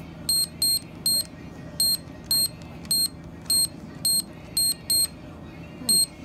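Checkout register beeping: eleven short, high electronic beeps at uneven intervals, over a steady low hum.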